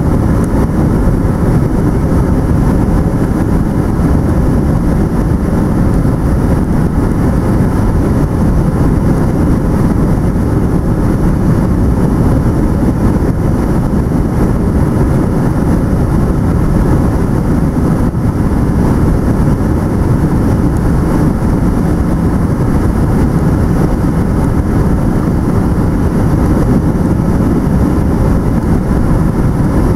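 Steady low cabin roar of a Boeing 757-200 on final approach with flaps extended: engine noise and airflow over the fuselage, heard from inside the cabin at a window seat behind the wing.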